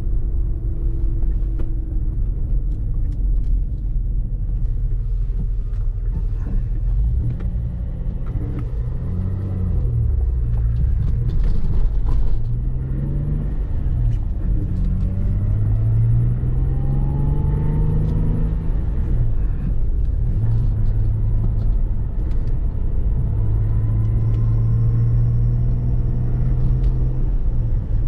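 Cabin sound of a 1989 Citroën XM on the move: engine running over a steady road rumble, its note rising and dropping back a few times as the car picks up speed, then holding steady near the end.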